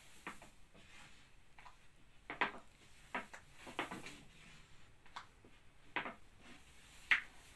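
Long thin wooden rolling pin (oklava) knocking and rolling against a wooden dough board as baklava dough is rolled out: a series of light wooden knocks, irregular, about one a second.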